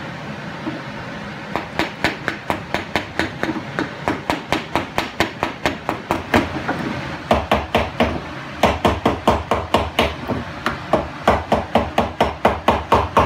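A big wooden mallet striking a chisel, chopping out a dado in a wooden slab. A quick, even run of knocks, about three to four blows a second, starting about a second and a half in and getting harder in the second half.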